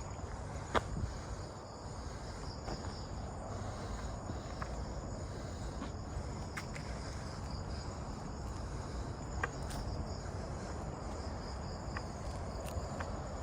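Steady chorus of night insects trilling in the forest, with a few scattered sharp clicks.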